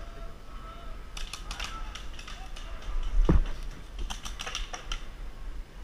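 Clicks and rattles of handling and footsteps in leafy brush, in two short clusters. There is one heavy bump a little after three seconds in, as the wearer drops to the ground.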